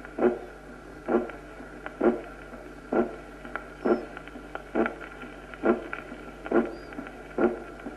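Recorded heart sounds heard through a stethoscope: a regular heartbeat of about 66 beats a minute, with the thumps evenly spaced over a faint steady hum. The first heart sound is muffled, which the lesson ties to a long PR interval (first-degree heart block), calcified valves, heart failure, shock or infarction.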